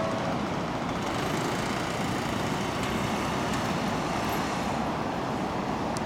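A railway level-crossing warning bell stops ringing just after the start, leaving a steady rumble of a passing train and road traffic that thins out near the end as the barriers lift.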